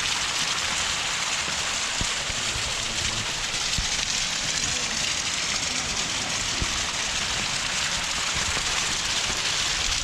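Small mountain waterfall splashing steadily: a dense, even hiss of falling water.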